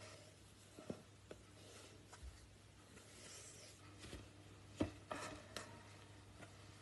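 Faint cloth rustling and rubbing as a cotton sock is pulled off a foot, with a few soft taps and clicks, the sharpest about five seconds in. A low steady hum lies underneath.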